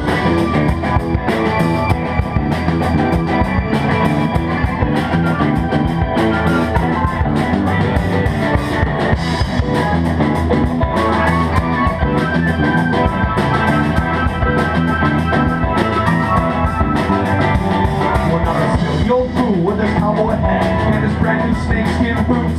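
Live rock band playing an instrumental passage between sung verses: electric guitars, drum kit and keyboard, loud and steady.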